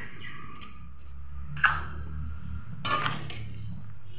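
Utensils clinking and scraping against a pan of bubbling chicken curry as it is stirred with a spatula, a sharp clink about one and a half seconds in and another about three seconds in, over a low steady rumble.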